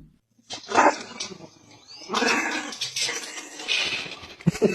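A dog making noisy, breathy vocal sounds in short spells, with a few sharp knocks near the end.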